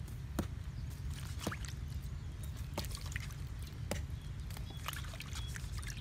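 Small raw fish handled in a shallow metal wok with a little water: wet squishes and drips, with about four sharp taps, over a steady low rumble.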